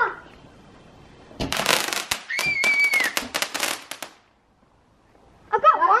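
Garden firework going off with a rapid run of sharp crackles lasting a few seconds, a short high-pitched tone sounding over the middle of it. The crackling stops abruptly and children start talking near the end.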